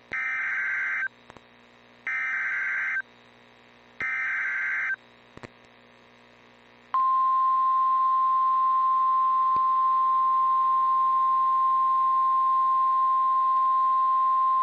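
NOAA Weather Radio Emergency Alert System activation: three bursts of about a second each of SAME header data, a warbling digital tone that encodes the alert. About seven seconds in, the steady single-pitch 1050 Hz warning alarm tone begins and holds, the signal that a warning message follows.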